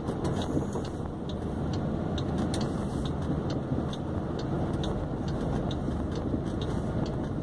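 Cab interior of a moving VW Constellation 24-280 truck: steady diesel engine and road noise, with faint ticks about twice a second.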